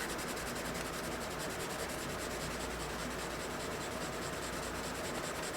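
Charcoal rubbing steadily across drawing paper, a continuous dry scratchy hiss.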